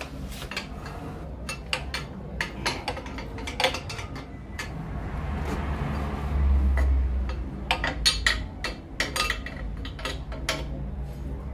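Metal hand tools clinking and clicking as a wrench works the exhaust header bolts of a Yamaha FZ25 motorcycle: irregular sharp metallic taps throughout. A low rumbling noise swells for a couple of seconds in the middle and is the loudest part.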